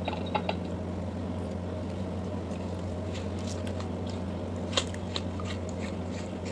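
Pomegranate being pried apart by gloved hands: scattered small crackles and clicks as the peel splits and the seeds tear loose, with one sharper click about five seconds in, over a steady low hum.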